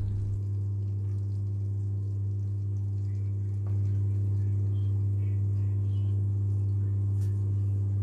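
Steady low electrical hum with a stack of even overtones, getting a little louder about four seconds in.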